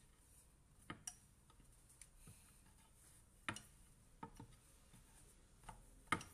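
Wooden rolling pin knocking lightly on a wooden board while rolling out dough: a handful of short taps, the loudest about three and a half seconds in and just before the end, with near silence between them.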